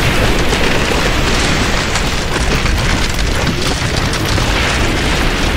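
Loud, steady rushing of crashing surf, with wind buffeting the microphone, close to lava pouring into the sea.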